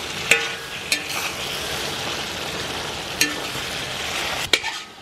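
Chopped meat sizzling and frying in a steel discada disc (cowboy wok) with a steady hiss, while a metal spatula stirs it, knocking sharply against the pan about four times, one knock ringing briefly.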